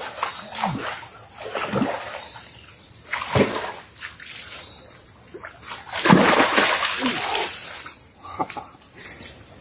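A hooked toman (giant snakehead) splashing and thrashing at the water's surface. There are several short splashes, then a louder burst of splashing about six seconds in.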